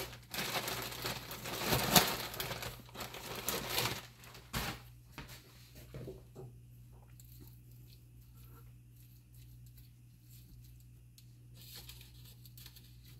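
Plastic bag crinkling and rustling for about four seconds, then faint scraping and small clicks of a fork working through a baked sweet potato on a plate.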